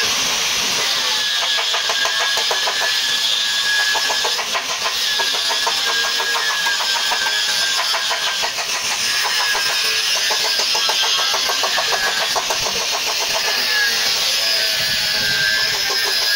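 A motor running steadily, with a fast, even pulse.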